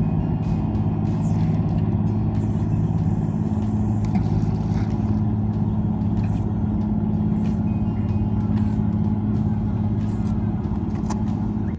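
An engine running steadily at a constant speed, an even low drone with a few faint clicks over it.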